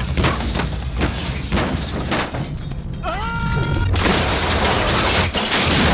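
Film car-crash sound effects: sudden knocks over a low rumble, a short rising tone near the middle, then a loud spray of shattering glass from about four seconds in.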